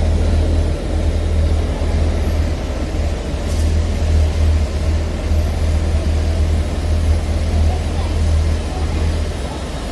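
Steam boiler running under test, giving a steady, loud low mechanical hum and rumble.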